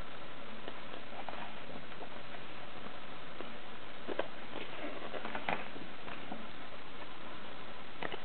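Paper pages of a large book handled and turned by hand: soft rustling and a few light clicks around the middle and near the end, over a steady hiss.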